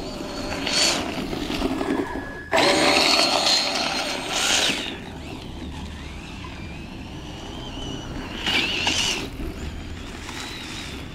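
Tamiya DF-03Ra 4WD radio-controlled rally car driving on snow: its electric motor and gears whine in bursts as the throttle is applied, over tyre and snow noise. The loudest burst starts suddenly a couple of seconds in, and another comes near the end.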